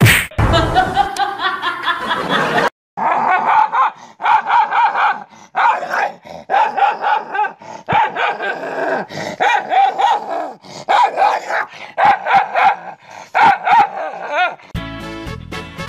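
Small dog barking and yapping at its own reflection in a mirror: a long, fast run of short, high barks with growly edges. Music comes in near the end.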